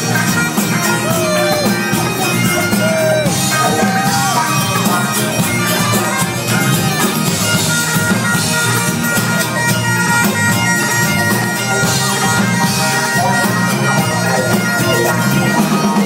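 A live band playing a lively Scottish tune, with bagpipes carrying the melody over a steady drone and the band pulsing loudly underneath.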